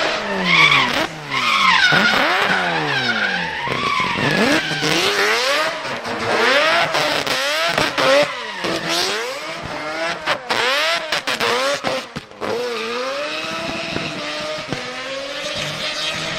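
Drift car engine revving hard, its pitch rising and falling over and over as the throttle is worked, with tyre squeal under it. A run of short, sharp cuts in the engine note comes about two-thirds of the way through.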